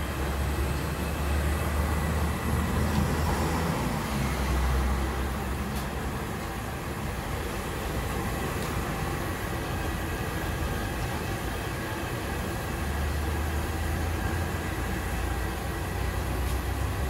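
Hot oil sizzling steadily in a large wok as battered banana pieces deep-fry. A low rumble underneath comes and goes, strongest in the first few seconds and again near the end.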